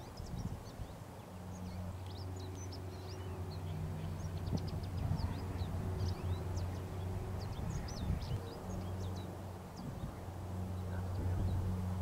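Small birds chirping, many short high chirps overlapping in quick succession, over a steady low hum.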